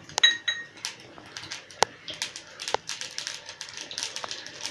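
Black mustard seeds spluttering in hot oil in a steel kadhai: irregular sharp pops and crackles, growing more frequent toward the end.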